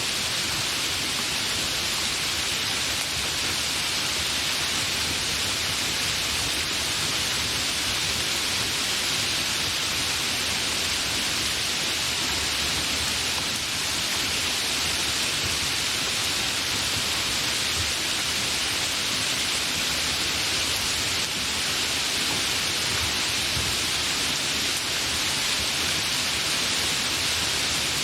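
Steady, continuous rain falling, a dense even hiss with no distinct drops or thunder standing out.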